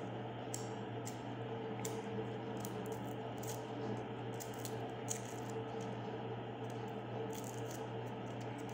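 Kitchen knife scraping and picking the papery skins off garlic cloves: short, irregular scratches and crackles. Underneath is a steady low hum.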